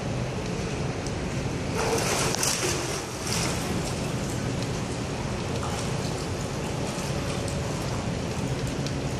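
Indoor swimming pool water splashing and lapping as children swim, with a louder splash about two seconds in, over a steady low hum.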